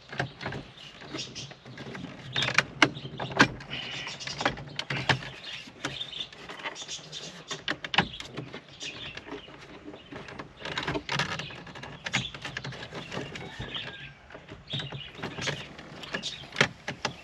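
Plastic dashboard trim panel on a Jaguar XF being pried and pulled outwards by hand: irregular clicks, creaks and scraping of plastic. The panel is still held by a screw that was not fully removed.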